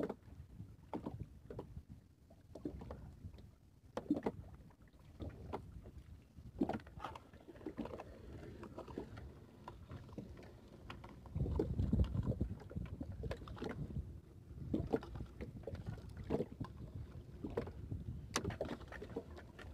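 A fishing net being hauled hand over hand into a small boat: frequent short knocks and clicks of net, line and floats against the hull, over a low rumble of wind and water. The rumble grows louder for a second or two about twelve seconds in.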